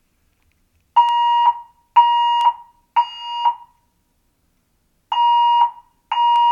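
Building fire alarm evacuation tone in the temporal-three pattern: three steady half-second beeps a second apart, a pause, then the next group of three beginning. The evacuation signal that alternates with the recorded voice message.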